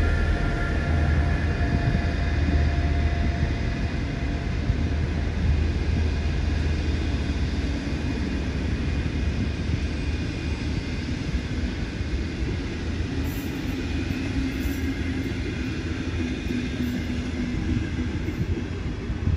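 A train running along the track: a continuous low rumble of wheels and running gear with a few steady tones in the first seconds, slowly getting quieter.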